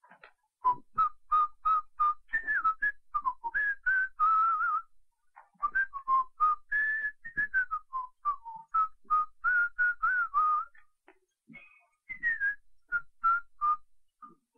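A man whistling a tune with pursed lips: a string of short, quick notes that rise and fall, with a couple of brief pauses.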